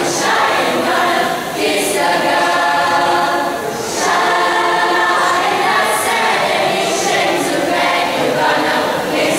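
Mixed school choir of teenage girls and boys singing together, in sustained phrases with brief breaks about one and a half and four seconds in.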